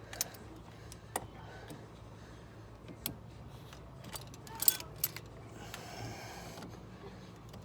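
Scattered light clicks and knocks of hard plastic and metal parts being handled as a coolant hose is worked onto a heater core adapter, with a short scraping rustle about six seconds in.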